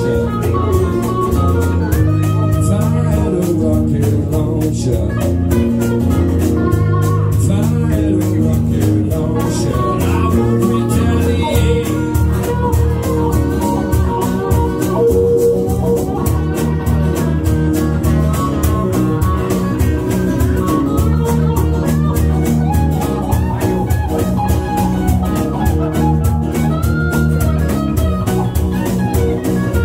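Live band playing a blues-rock song on electric bass guitar and two acoustic guitars.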